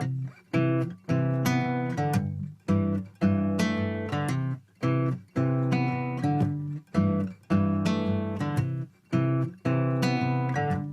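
Background acoustic guitar music: strummed chords in a steady rhythm, about two a second, each briefly cut off before the next.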